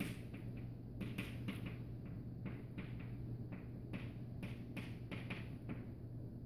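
Chalk on a blackboard: quick, irregular taps and short scratches as words are written out, over a steady low hum.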